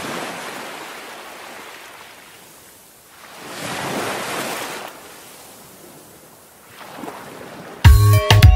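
Ocean surf: waves wash in and draw back, swelling twice, the second time louder. Near the end a loud music track with a drum beat starts abruptly.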